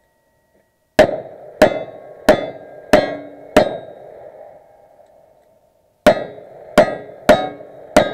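Revolver shots at steel targets: five quick shots about two-thirds of a second apart, a pause of about two and a half seconds, then four more. Several shots are followed by the short ring of struck steel plates. The pause fits the switch from one single-action revolver, emptied after five rounds, to the second.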